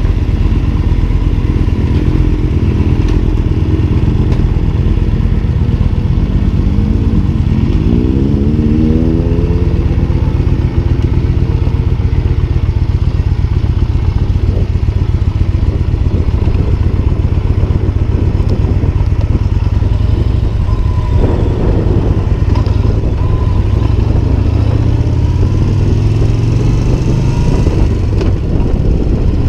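Yamaha Bolt's air-cooled V-twin engine pulling away from a stop and accelerating, its pitch rising through the revs about seven seconds in and again near the end, with a steady low rumble while cruising in between.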